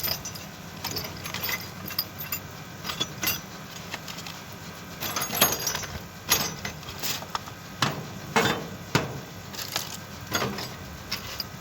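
Irregular metallic clinks and knocks as the parts of a DStv satellite dish and its hardware are handled during assembly.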